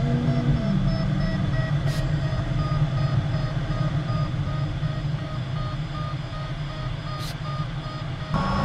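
Steady rush of air in a glider cockpit, with the variometer beeping a repeated tone, about two or three beeps a second. The beeping is the vario's signal that the glider is climbing in lift.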